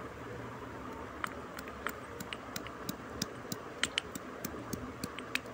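Irregular sharp crackles and pops at an open wood cooking fire where coconut pieces are frying in coconut oil, starting about a second in, over a low rumble.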